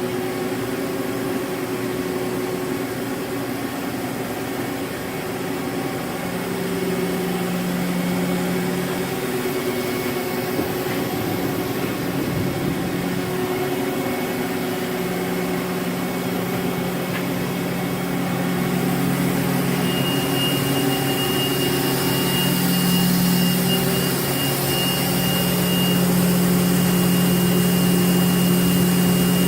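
Mazak Slant Turn 60 CNC lathe running, a steady mechanical hum from its motors. About two-thirds of the way in, a thin steady high whine joins and the sound grows a little louder.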